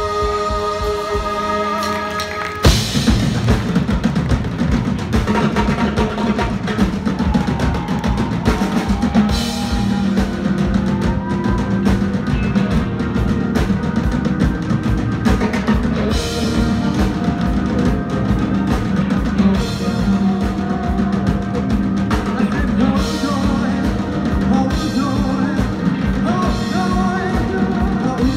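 Live funk-soul band with a horn section, keyboards, drum kit and singing. A held chord for the first couple of seconds, then the full band and drums come in sharply and play on.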